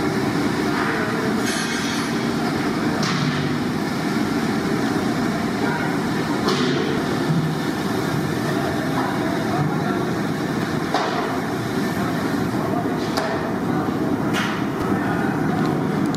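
Fish pieces deep-frying in a kadai of hot oil over a gas burner: a steady sizzle, with several sharp metal clanks of a ladle against the iron pan spread through.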